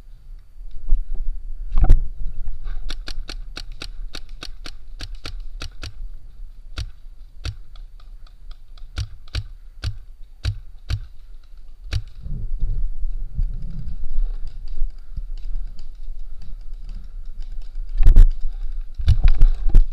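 Paintball marker firing: a fast string of shots, about five a second for a few seconds, then slower single shots about half a second apart. A few louder thumps come near the start and near the end.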